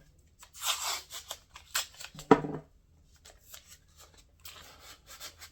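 Painter's tape pulled and torn, with scratchy handling of the vinyl skin and its backing, in short scratchy bouts with quick clicks. A sharp knock about two seconds in.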